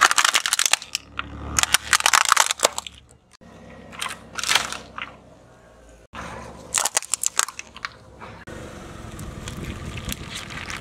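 A car tyre rolling over and crushing plastic objects, in several short separate takes: clusters of sharp crunches and cracks of breaking plastic, starting with a plastic toy bus. Near the end comes a steadier crackling noise as plastic cups of coloured liquid are flattened and burst.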